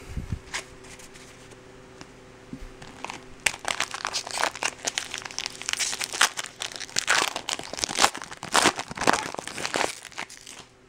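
Foil wrapper of a Bowman baseball card pack being torn open and crinkled by hand: a dense run of crackling from about three and a half seconds in until near the end, after a few light taps at the start.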